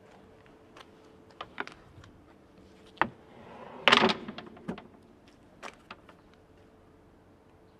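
Plastic filter-press plates knocking and clacking as they are pushed by hand along the press's side rails: a scatter of sharp knocks, the loudest cluster about four seconds in. A faint steady hum runs underneath.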